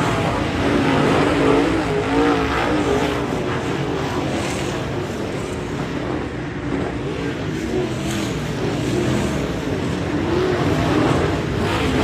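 A pack of dirt late model race cars running at speed through a turn, several V8 engines overlapping as their pitch rises and falls with the throttle. It is loudest about a second in and again near the end as cars slide past close by.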